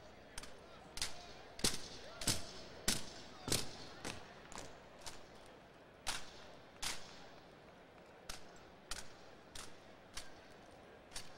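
Drill team's rifles being spun, caught and slapped, with rifle butts struck in unison: a series of sharp cracks, about two a second and unevenly spaced, some in quick pairs, each followed by a brief echo.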